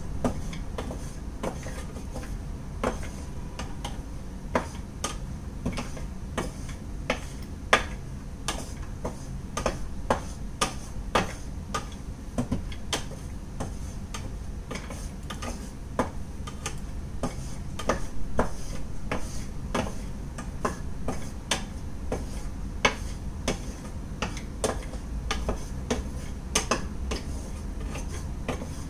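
Wooden spatula stirring cashew nuts in a frying pan, giving irregular clicks and knocks against the pan, a few a second, over a steady low hum.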